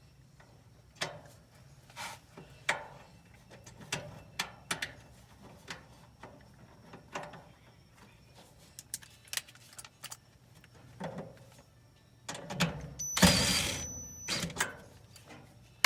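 Scattered clicks and knocks of tools and metal parts being handled inside an electric dryer during a part swap, with a louder mechanical burst lasting about a second near the end.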